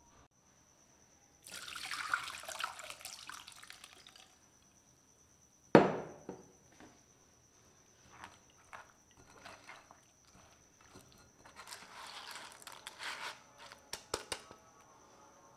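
Wet, squelchy sounds of soaked tamarind pulp being pressed and scraped with a silicone spatula through a stainless-steel mesh strainer, with small clicks of the spatula against the mesh. Early on there is a stretch of running liquid, followed by one sharp knock about six seconds in. A faint steady high whine sits underneath.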